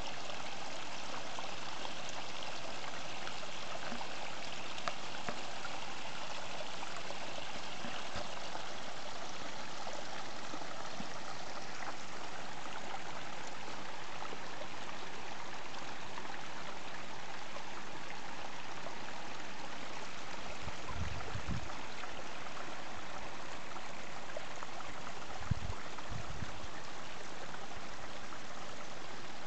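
Small mountain stream running over stones: a steady rushing hiss, a little brighter in the first dozen seconds. Two brief low bumps on the microphone in the last third.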